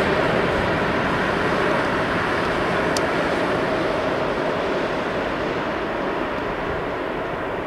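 Jet noise from the four engines of an Airbus A380 airliner on final approach: a steady rushing roar that slowly fades as the airliner moves away toward touchdown.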